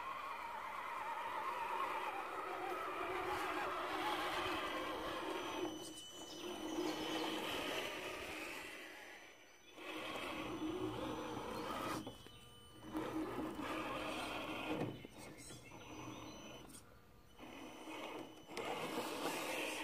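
Axial SCX10 RC crawler's electric motor and gears whining as it crawls over roots and moss, stopping and starting several times.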